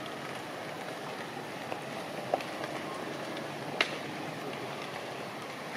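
Steady outdoor background hiss, with two short sharp clicks about two and a half and four seconds in.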